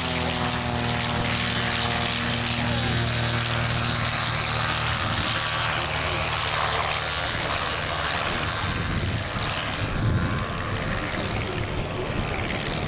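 Propeller aircraft at take-off power: the Cri-Cri micro plane's two small two-stroke engines and the Nord 3202's piston engine. A steady engine note gives way about five seconds in to a broader drone as the Cri-Cri lifts off and climbs away.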